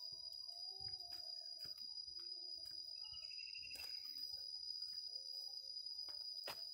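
Animal calls, short wavering notes and a brief trill about three seconds in, over a steady high-pitched drone, with scattered clicks.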